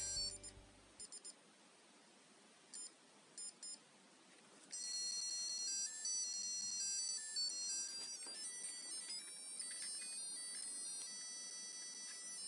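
A digital alarm clock gives a few short beeps, then from about five seconds in it plays its built-in electronic alarm melody in thin, high notes, very quietly.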